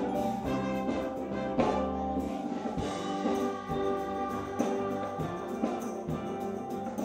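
Children's choir singing with a live band, a drum kit's cymbals among the instruments.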